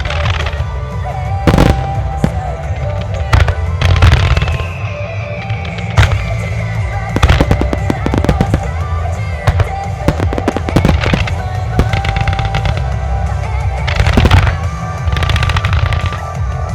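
Music starmine fireworks display: aerial shells bursting in sharp bangs, with stretches of rapid crackling, over music played to accompany the show.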